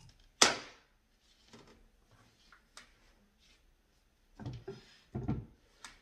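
A wide-tooth comb set down on a wooden desktop with one sharp clack about half a second in, followed by a few faint ticks and, near the end, soft rustling and dull bumps of handling.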